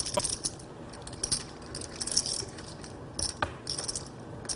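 Clay poker chips clicking together as players riffle and handle their stacks, in quick irregular clusters of sharp clicks.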